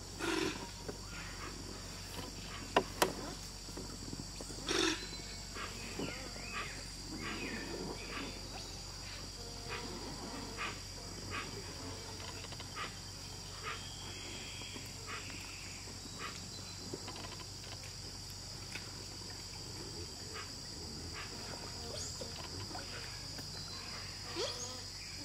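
Giant otters calling with many short, repeated calls, about one every half-second to second, over a steady high-pitched drone of rainforest insects. Two sharp clicks about three seconds in are the loudest sounds.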